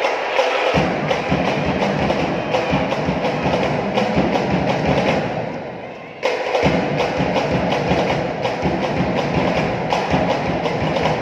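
Arena crowd noise at a volleyball match: dense, rapid percussive hits and drum beats over cheering and music. It fades just before six seconds in, then comes back abruptly.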